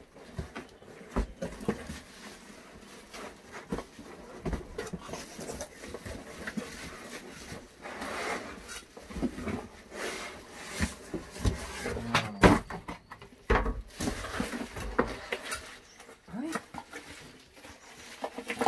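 Unpacking noises: cardboard box flaps and inserts and plastic wrapping rustling and crinkling, with scattered knocks and thuds as plastic-wrapped stainless steel cookware is handled. The sharpest knock comes about twelve seconds in.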